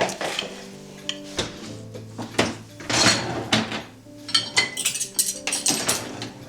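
Cutlery and dishes clinking in a run of short, sharp knocks, busiest in the second half, over soft background music.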